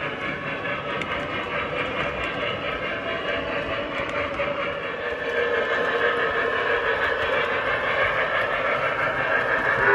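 O-scale model of a Pennsylvania Railroad T1 Duplex steam locomotive, fitted with Lionel Legacy sound, running with its passenger cars rolling along the track: a steady running sound that grows a little louder about halfway through.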